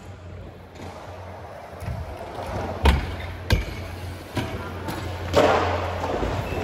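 Freestyle scooter wheels rolling on concrete, then a run of sharp knocks as the scooter hits and grinds a metal rail, the loudest about three seconds in. A louder landing about five and a half seconds in, followed by rolling.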